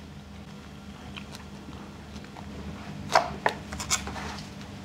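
A metal spoon clinking and scraping against a dish while someone eats, with a few sharp taps about three seconds in, over a low steady room hum.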